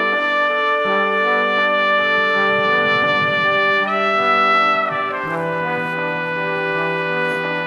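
Background music of brass instruments holding long sustained chords, with a higher note swelling up about four seconds in.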